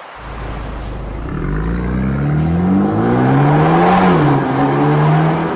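BMW M235i F44 engine running through an RES valved aftermarket exhaust, revving: a low exhaust rumble comes in suddenly at the start, the pitch climbs steadily to a peak about four seconds in, drops back, and holds.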